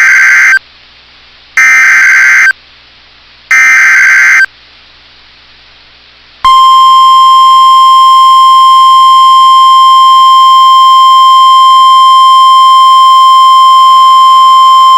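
NOAA Weather Radio Emergency Alert System SAME header: three loud, roughly one-second bursts of buzzing digital data about two seconds apart. After a short gap comes the steady 1050 Hz warning alarm tone, held for about nine seconds, heralding a severe thunderstorm warning.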